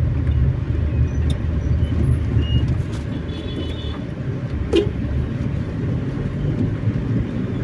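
Steady low rumble of a vehicle being driven, with a few faint clicks, the clearest about five seconds in.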